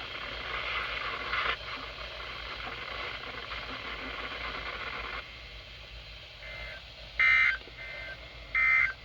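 Weather-radio static hiss for about five seconds, which then drops away. Short bursts of Emergency Alert System SAME digital data tones follow: two loud bursts about a second and a half apart, with fainter bursts between them.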